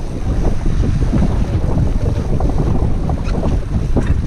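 Wind buffeting the microphone on an open fishing boat: a steady, loud low rumble with a few faint ticks above it.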